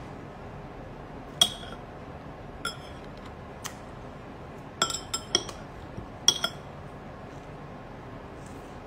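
Metal chopsticks clinking against ceramic bowls while eating: about eight short, ringing clinks, the loudest near the start and about two-thirds of the way through.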